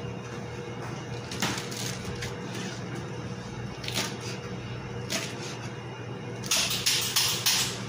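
Chef's knife cutting through lettuce onto a plastic cutting board: a few single cuts, then four or five quick chops close together near the end. A steady low hum runs underneath.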